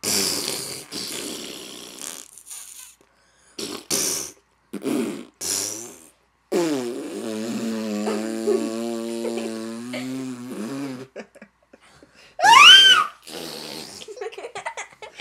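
Mouth-made fart noises (raspberries): several short sputtering ones, then one long buzzing raspberry of about four and a half seconds. A loud, high squeak that rises and falls comes near the end.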